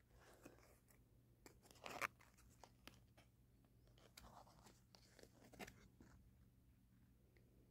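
Faint rustling and clicking of a plush toy's cardstock hang tags being handled and turned over, with the loudest rustle about two seconds in.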